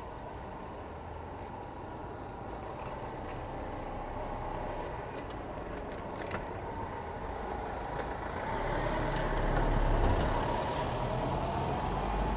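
Street traffic: a motor vehicle runs along the street, its low rumble building to a peak about ten seconds in as it passes close by, over a steady hum of the town.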